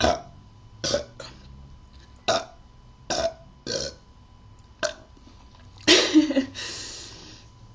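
A person burping repeatedly: about seven short burps in the first five seconds, then a longer, louder burp about six seconds in that trails off into a breath out.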